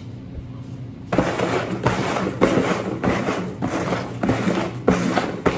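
Upturned clear plastic bowls sliding and scraping across a wooden tabletop as they are shuffled, a quick irregular run of scrapes and light knocks starting about a second in. A steady low hum sits underneath.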